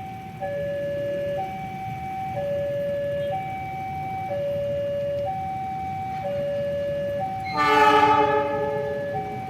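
Warning alarm sounding a steady hi-lo two-tone, about one second per tone, as a railway level-crossing alarm does. About 7.5 seconds in, a locomotive horn sounds for about a second and a half, the loudest sound.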